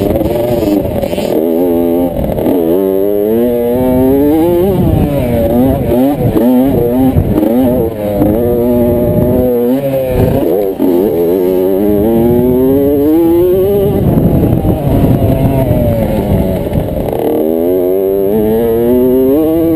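Kawasaki KX65 two-stroke single-cylinder engine heard from on the bike, revving hard under racing throttle. Its pitch climbs and falls away again and again as the rider accelerates, shifts and backs off.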